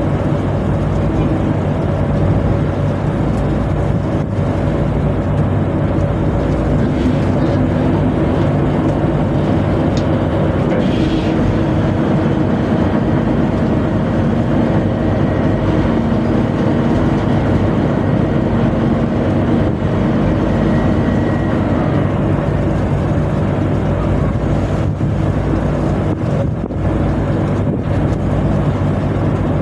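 A tugboat's engine machinery running with a steady, even drone.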